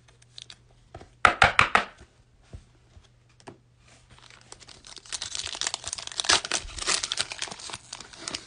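Foil wrapper of a 2019-20 NBA Hoops Premium Stock trading-card pack crinkling and tearing as it is ripped open by hand, for the last few seconds. About a second in comes a short run of sharp crackles from handling.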